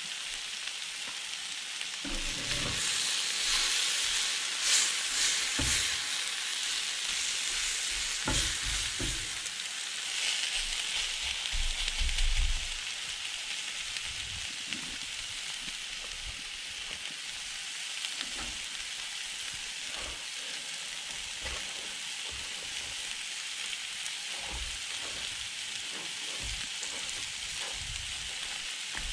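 Steak strips, peppers and melting cheese sizzling on the hot steel of a 22-inch Blackstone flat-top griddle. The sizzle is louder in the first dozen seconds, with a few knocks, then settles to a steadier, quieter sizzle.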